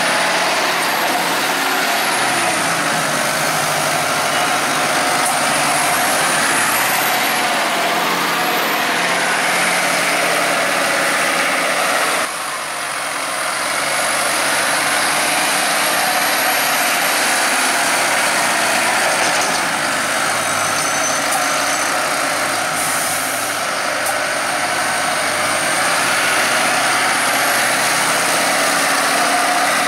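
Valtra N154 tractor running under load while buckraking chopped maize on a silage clamp: a steady, loud engine noise with a high whine that rises and falls as it works.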